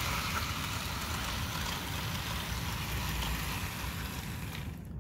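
Two powered Athearn HO scale AC4400 model locomotives running around the track with a train of cars, a steady whirring hiss from their motors and wheels that cuts off just before the end. The owner finds them a little noisy and thinks the used locomotives probably need a good cleaning and maybe lubrication.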